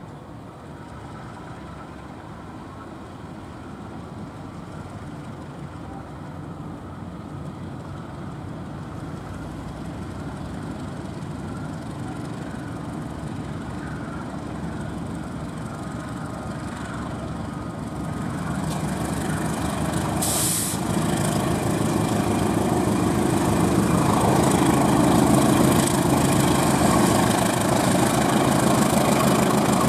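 GE diesel-electric locomotive hauling a long train of cement hopper wagons, its diesel engine running steadily and growing louder as it approaches, with a brief hiss about twenty seconds in.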